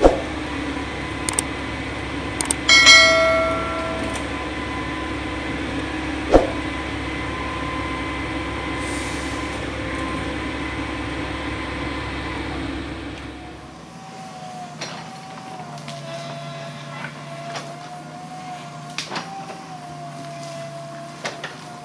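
Heavy earthmoving machinery's diesel engine running steadily, with a ringing metal clank about three seconds in and a sharp knock a few seconds later. About two-thirds of the way through the engine drone drops away suddenly, leaving a quieter, wavering whine and scattered clicks.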